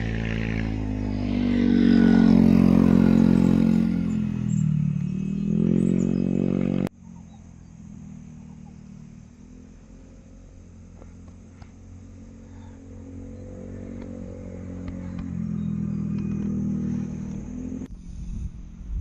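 Motorcycle engine running loudly, its pitch dipping and then rising again. About seven seconds in the sound cuts abruptly to a quieter engine running steadily, which grows louder near the end before cutting off.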